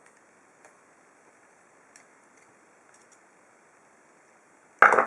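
A few faint, light clicks of a metal padlock and tools being handled, then a louder metallic clatter near the end.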